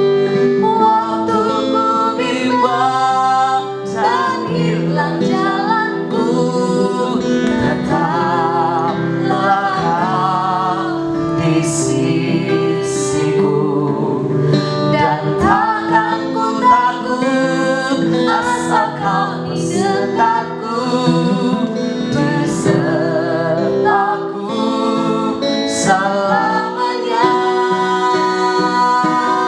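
A woman singing a praise song over acoustic guitar accompaniment.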